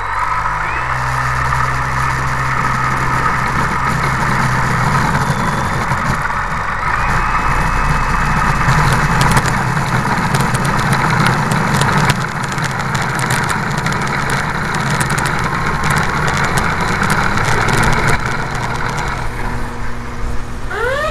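RC Cessna 182 model's motor running steadily through a takeoff roll, its pitch stepping up twice as the throttle is advanced, heard from a wing-mounted camera with wind and rolling noise. Short ticks and rattles come in the middle as the wheels roll over rough asphalt.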